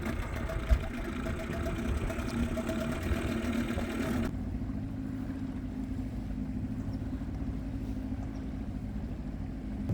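Boat motor running steadily. It is louder and noisier for the first four seconds, then abruptly changes about four seconds in to a lower, even hum.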